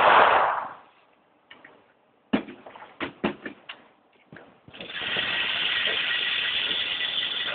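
The echo of a .45 pistol shot dying away in an indoor range, a few clicks and knocks about two to four seconds in, then from about five seconds in the steady running of the range's target-carrier motor as it brings the paper target back.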